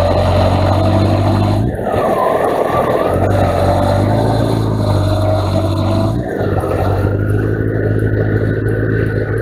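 Motorcycle engine running on the move, with wind noise on the bike-mounted camera's microphone. The steady engine note drops away for a moment about two seconds in and again about six seconds in.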